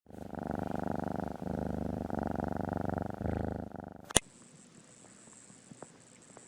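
Cat purring close up, a steady rapid rumble with two brief dips as it breathes. It cuts off with a click about four seconds in, leaving near quiet.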